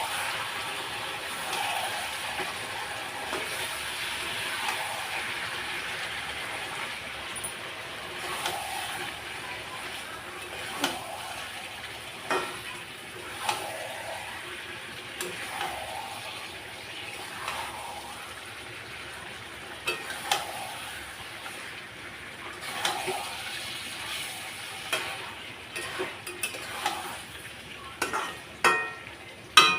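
Chicken curry frying and sizzling in its masala in a kadhai while a spatula stirs and scrapes it, a stroke every second or two over a steady hiss. A few sharper clinks of utensil on pan come near the end.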